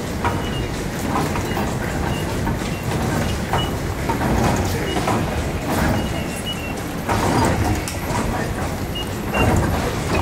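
Metro ticket barriers in use: several short, high electronic beeps from the card validators and the knocks of the gate doors opening and closing, over a steady rumble of station noise and footsteps.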